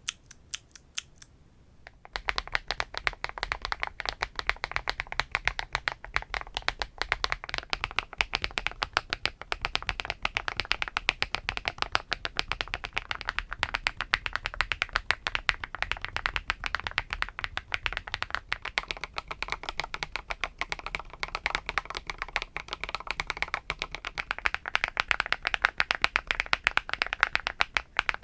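Fast, continuous typing on a mechanical keyboard with HMX Macchiato linear switches, a dense run of key clacks. A few isolated keystrokes come first; about two seconds in the steady typing begins, in a plastic-housed keyboard, and about 24 seconds in it moves to an aluminum-housed keyboard with sharper, louder clacks.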